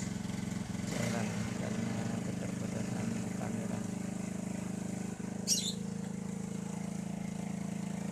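Honda Supra 125's single-cylinder four-stroke engine running steadily on a test run after its combustion chamber was cleaned and the engine reassembled. A brief high chirp sounds about five and a half seconds in.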